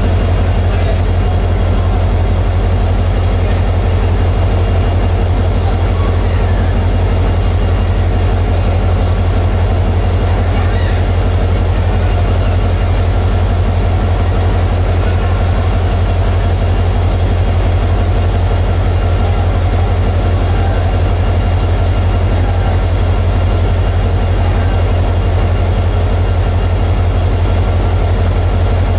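The EMD 16-710 two-stroke V16 diesel engine of a WDP-4D locomotive idling steadily: a loud, even, low throb with a steady hiss above it.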